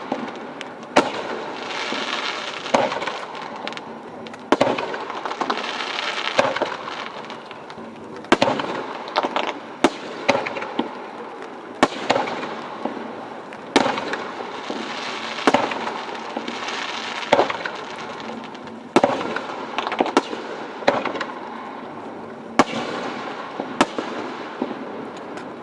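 Aerial firework shells bursting in a steady barrage, with a sharp bang every second or two and continuous crackling between the bursts.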